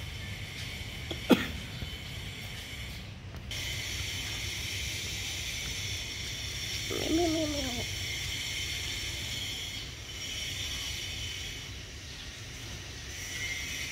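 Steady high-pitched hiss of background noise, with one sharp click just over a second in and a short call that falls in pitch near the middle.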